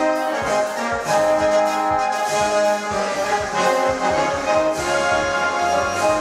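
Orchestral music led by brass, in held chords that change every half second or so: a national anthem being played.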